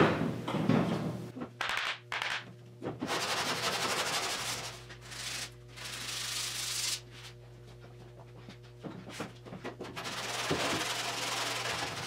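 Hand block sanding of body filler on a car's steel roof with 80-grit paper: rasping back-and-forth strokes, loudest right at the start, easing off for a few seconds, then picking up again near the end.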